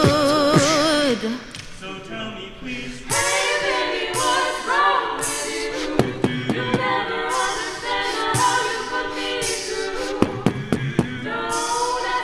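A cappella group singing live. A woman's held note with vibrato ends about a second in. From about three seconds the ensemble sings wordless backing harmonies over sharp vocal-percussion clicks.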